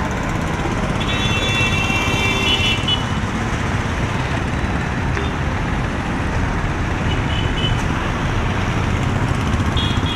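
Street traffic with a steady rumble of engines. A vehicle horn sounds for about two seconds near the start, with shorter toots later on.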